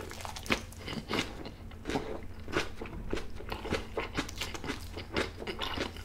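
A person chewing food with crunchy bites, about two crisp crunches a second.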